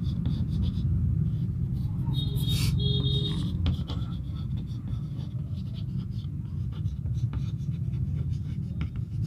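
Chalk writing on a chalkboard: short scratching strokes of the chalk over a steady low hum.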